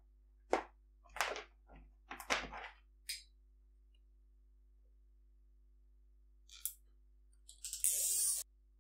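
A few short clicks and taps of a plastic box being handled against a wooden post, then, after a pause, a nylon cable tie zipped tight through its ratchet in one loud rasp near the end.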